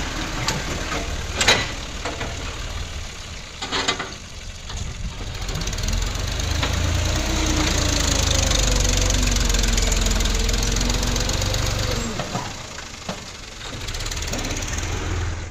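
Fiat 480 tractor's three-cylinder diesel engine running under load as its front dozer blade pushes stone rubble, with two sharp clatters about a second and a half and about four seconds in. The engine gets louder from about six seconds in and eases off again around twelve seconds.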